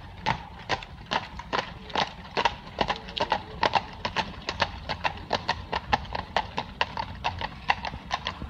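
Hooves of a pair of carriage horses clip-clopping on a tarmac road as they pass, a quick, even run of sharp clops several times a second.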